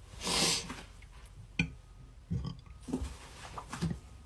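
A woman breathing out with a hiss, then a few short, faint throat sounds as she works to bring up a burp.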